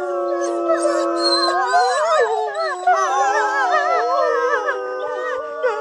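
A pack of wolves howling in chorus: several howls overlap at once, each rising and falling and wavering in pitch.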